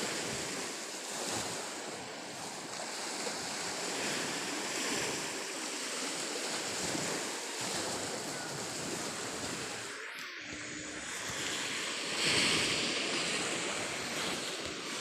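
Sea waves washing onto a beach, the surf swelling and easing every few seconds, loudest about twelve seconds in.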